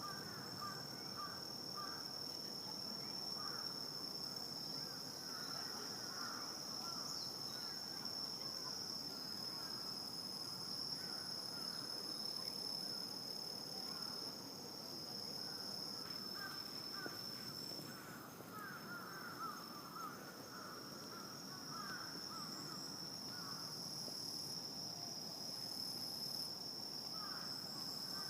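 Night insect chorus: a steady, high-pitched trill that never stops. Over it, bursts of lower, rapid chattering calls from other night animals come and go.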